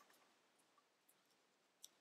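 Very faint crinkles and small clicks of tissue-foil paper being pinched and creased between fingertips, with one sharper click near the end.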